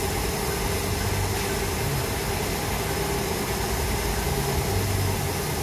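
A machine running steadily with an even noise and a low hum.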